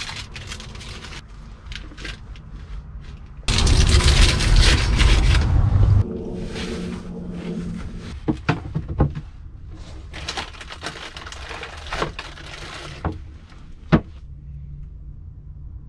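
Granola bar wrapper crinkling and rustling as it is handled and opened, with scattered crackles and small handling noises. A few seconds in, a loud rough noise with a heavy low rumble lasts about two and a half seconds and cuts off suddenly. Near the end a single sharp knock sounds as a plastic cooler lid is handled.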